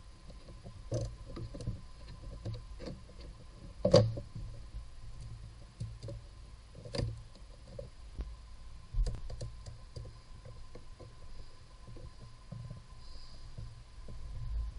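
Scattered clicks and knocks of hands working parts in a car's engine bay, with one sharper knock about four seconds in.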